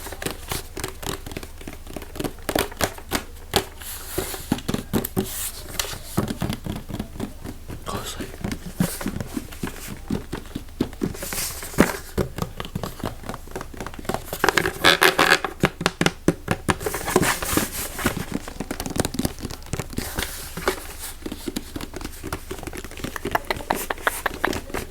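Fast ASMR triggers close to the microphone: a rapid run of taps, scratches and crinkling on assorted objects, switching to a new sound every few seconds. The busiest, loudest stretch comes a little past the middle.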